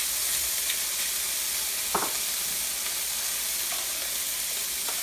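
Black beans and garlic sizzling steadily in a hot pan, with one sharp knock about two seconds in.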